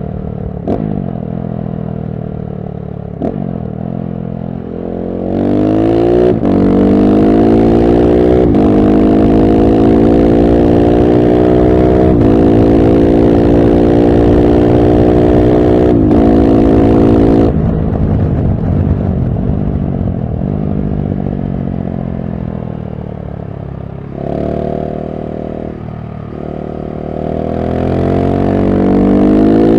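KTM 690 SMC-R's single-cylinder engine through a LeoVince One Evo slip-on exhaust, pulling hard through four upshifts, its pitch climbing and dropping back at each shift. About two-thirds of the way through the throttle closes and the engine winds down on overrun, then it accelerates again near the end.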